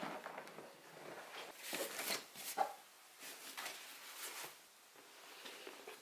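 Soft, irregular rustling of cloth as clothes are handled and laid into a fabric-lined suitcase.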